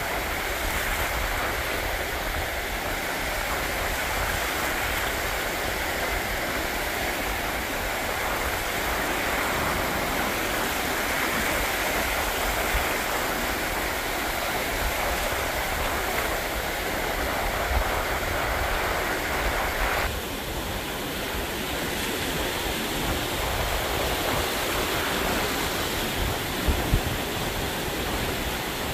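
Ocean surf rolling in and washing up the beach, heard as a steady rush, with strong wind buffeting the camcorder's boom microphone in a low, gusty rumble. The sound shifts about two-thirds of the way through.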